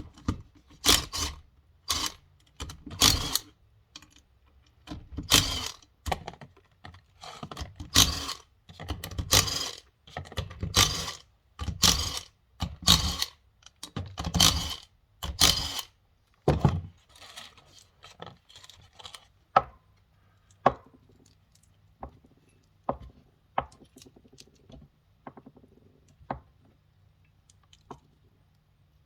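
Grime being scraped off a metal tractor final drive housing in repeated hard strokes, about one a second, giving way after roughly 17 seconds to scattered lighter clicks and taps.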